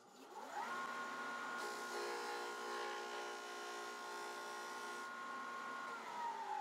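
Electric disc sander motor starting up with a rising whine, running at a steady pitch for about five seconds, then switched off and winding down with a falling whine near the end.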